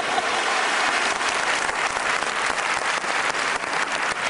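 Studio audience applauding, a steady clatter of many hands clapping.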